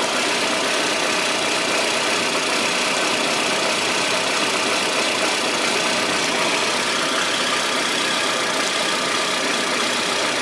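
Suzuki four-cylinder engine idling steadily under the bonnet. It has an ignition misfire traced to the number 1 cylinder, where the spark's burn time is short.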